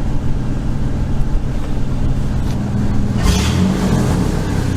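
2001 Ford F150's 4.2L V6 running steadily at warm idle, with a short rise in sound and hiss about three seconds in. It runs with no misfire felt on its new ignition coil.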